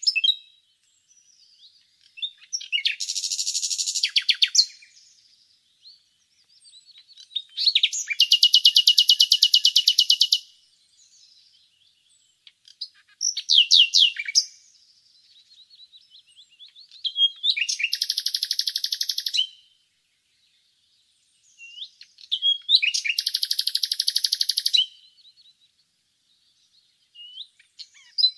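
Common nightingale singing: about six phrases of fast, rapidly repeated notes, each phrase a couple of seconds long, separated by short pauses.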